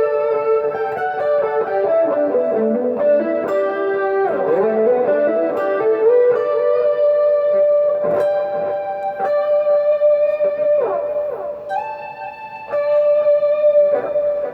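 Electric guitar played through a Zoom G1X multi-effects pedal: long sustained lead notes, with a few sliding dips in pitch.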